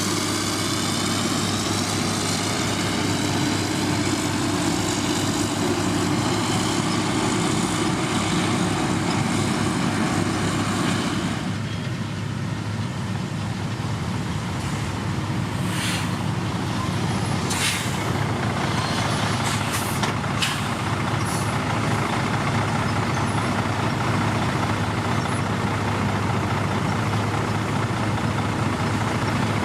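Heavy diesel road-construction machinery running steadily. A high whine over the engine note dies away about eleven seconds in, and several short hisses follow a few seconds later.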